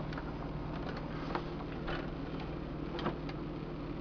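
A few light clicks and knocks as a vintage Burroughs printing calculator's plastic case is handled and tipped over, over a steady hum.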